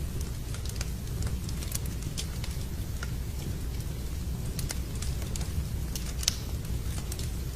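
Wood fire burning in a fireplace: a steady low rumble of the flames with irregular sharp crackles and pops, one louder pop about six seconds in.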